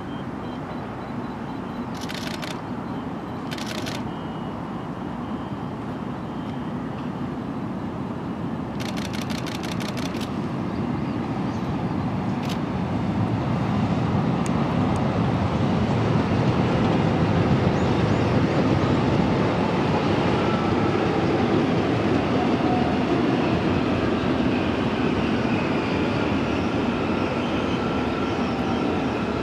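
Korail Class 341000 ten-car electric multiple unit approaching and passing on the Ansan Line. The rumble of its wheels on the rails grows steadily louder, is loudest a little past the middle, and eases slightly toward the end.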